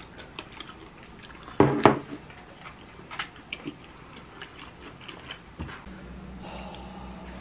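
A person eating fried chicken: chewing and small clicks of wooden chopsticks against the chicken and the dish, with two loud knocks a little under two seconds in. From about six seconds a steady low hum sets in.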